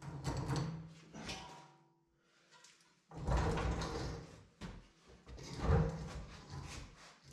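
A heavy log-burner stove being rocked and dragged out of a fireplace, its metal legs scraping and grinding on the stone hearth in irregular bursts. There is a short lull about two seconds in, then longer, louder scraping from about three seconds on.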